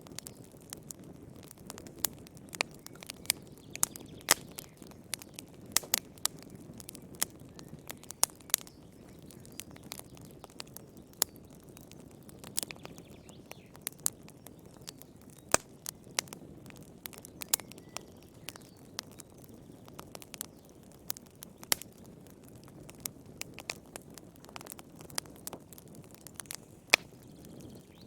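Wood fire burning in a fireplace: frequent sharp, irregular crackles and pops over a soft low rumble of the flames.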